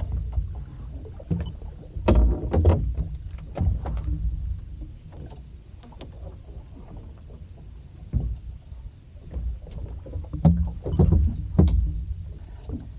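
Scattered knocks and clatter of gear against a small fibreglass centre-console boat, in clusters about two seconds in and again near the end, over a steady low rumble of wind and water.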